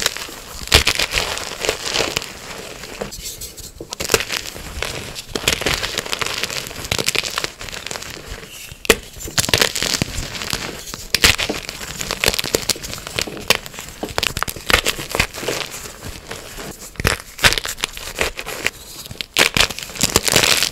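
Dyed gym chalk being crushed and crumbled, a dense crackling crunch that comes in bouts with short lulls between.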